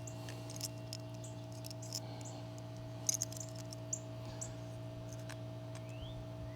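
Faint scattered clicks and taps of a chainsaw's chain, bar and adjuster being handled, over a steady low electrical hum. Two short rising chirps sound near the end.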